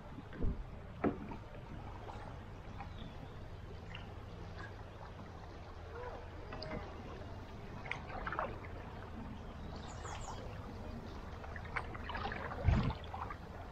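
Paddling a solo canoe on a moving river: paddle strokes splashing and dripping over the steady wash of the current, with a few thumps against the canoe, the loudest near the end.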